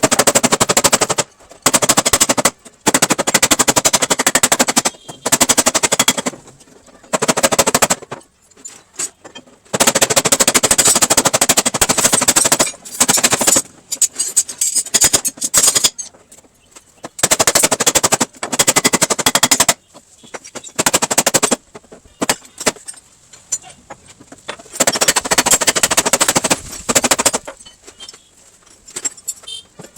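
Car-body repair work on sheet metal: repeated bursts of very rapid rattling or crackling, each one to three seconds long, stopping and starting with short pauses.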